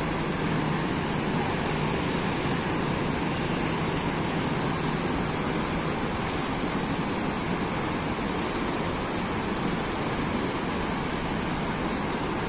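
Steady rush of river water pouring through the open sluice gates of a dam.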